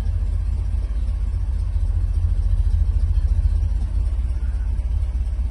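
1967 Pontiac Bonneville's V8 engine idling steadily after warm-up, the choke off and the idle kicked down to its normal low speed, heard as a low rumble from inside the cabin.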